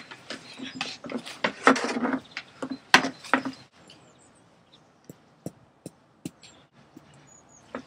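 Rustling and knocking as a plastic garden chair is shifted on stone paving, with one sharp knock. Then a run of light, evenly spaced taps, about two or three a second, from a small hammer at a kiwi fruit on the paving, with faint bird chirps.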